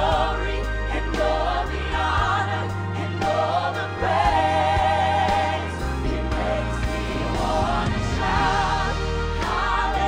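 Gospel song performed live: solo voices singing into handheld microphones with a choir and band behind them, over a steady bass line.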